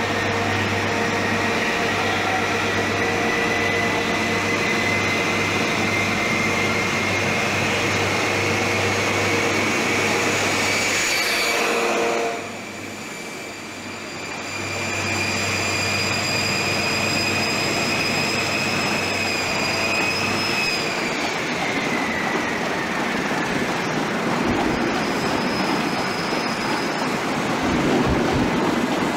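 InterCity 125 high-speed train with its Class 43 power car and Mk3 coaches moving through the station. A steady low diesel drone runs under a high whine that climbs slowly for about twenty seconds and then falls away; the drone stops around the same time, and the rolling noise of the coaches carries on.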